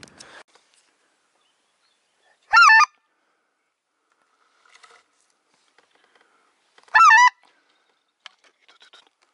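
Goose call blown twice, about four seconds apart: two short, loud, wavering honks imitating wild geese. Faint rustling and small clicks come in between.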